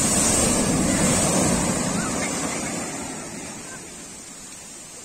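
Surf washing up a sandy beach: a wave's rush of foaming water that is loud at first and fades away over about three seconds as it spreads and drains.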